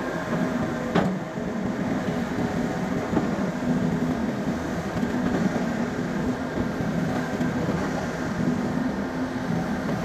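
SDLG crawler excavator's diesel engine running steadily under load as it digs, with one sharp metallic knock about a second in.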